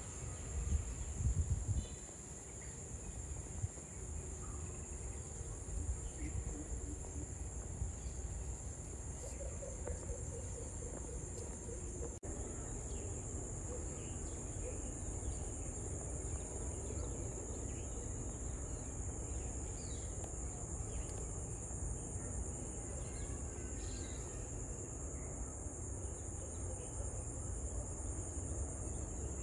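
A steady, high-pitched chorus of insects, trilling without a break, in the trees around a weaver ant nest. A brief low rumble in the first two seconds.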